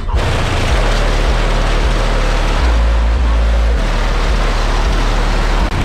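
Pboyz subwoofers in a Box Chevy's trunk playing bass-boosted music loudly: deep held bass notes that shift every second or so, the longest about halfway through, under a harsh noisy wash.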